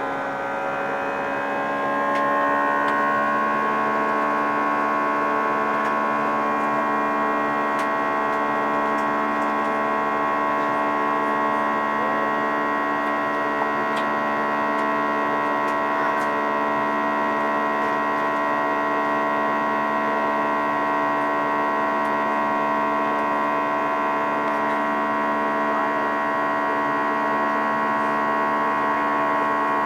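Airbus A320 jet engines spooling up for takeoff, heard from inside the cabin. Several whining tones rise in pitch over the first two seconds and then hold steady and loud.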